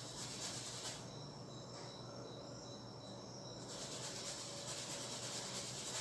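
Faint, steady high-pitched trilling of crickets.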